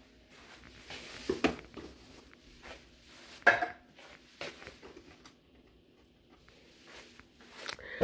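A few short knocks and clicks in a quiet room, the loudest about three and a half seconds in.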